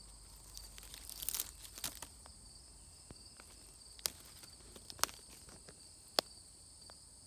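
A cockatoo chewing on a tree branch with its beak, crunching and tearing at the wood: a burst of crackles in the first two seconds, then single sharp snaps about four, five and six seconds in. A steady high insect buzz runs behind.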